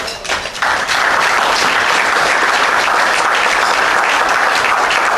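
Audience applauding: a few scattered claps swell within a second into steady, full applause.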